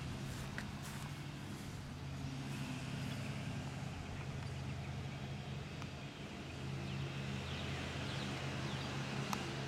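Steady low hum of a running vehicle engine, with a few faint bird chirps about seven to eight seconds in.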